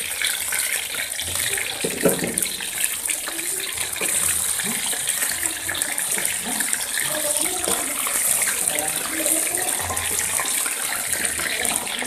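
Flour-coated chicken pieces sizzling steadily as they deep-fry in hot oil in a steel wok, with crackles throughout. A metal spatula knocks and scrapes in the wok as the pieces are turned, most sharply about two seconds in.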